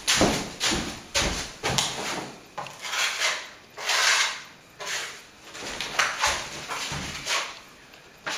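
Steel plastering trowel scraping wet plaster across a wall: about a dozen short, rasping strokes at an uneven pace of one to two a second, as a coat is laid on and smoothed over a filled electrical chase around a switch box.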